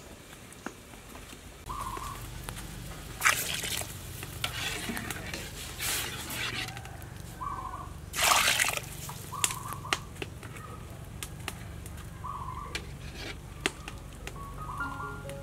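Pot of water boiling with glutinous rice balls in it: bubbling and sloshing with scattered clicks, several louder splashy bursts, and a steady low hum underneath from about two seconds in.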